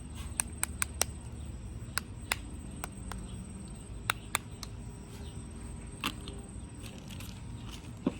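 Small, sharp clicks and taps of plastic lip gloss tubes and caps being handled, coming irregularly, several in quick succession in the first second and a few more spread through the rest.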